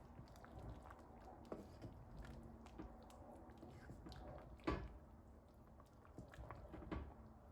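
Near silence: room tone with faint scattered clicks and one sharper knock about two-thirds of the way through.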